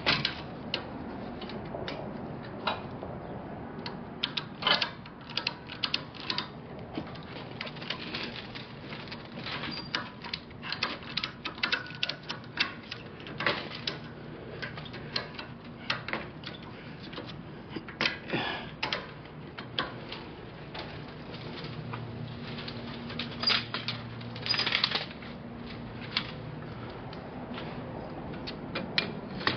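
Irregular metallic clanks and clicks as steel gravity roller-conveyor sections are handled and set up at the back of a trailer for unloading, over a faint low hum.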